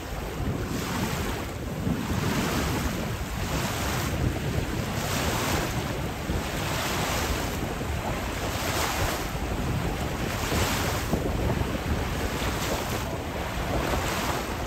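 Wind buffeting the microphone over rushing, splashing water while windsurfing, with a hiss of spray swelling about once a second.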